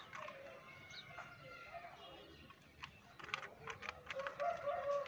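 Sharp plastic clicks and taps from a toy car being handled and turned in the hands, a cluster of them past the middle. Bird calls sound throughout and grow louder near the end.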